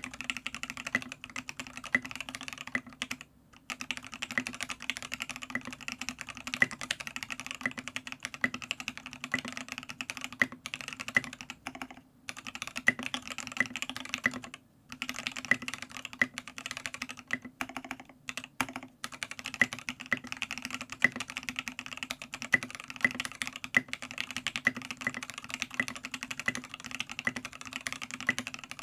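Steady, fast typing on a Matrix Noah 65% keyboard with an aluminium plate, lubed C³Equalz Tangerine linear switches on 70 g springs, foam-dampened case and KAT Milkshake keycaps, played on a deskpad. Keystrokes come in a dense stream, with a few short breaks.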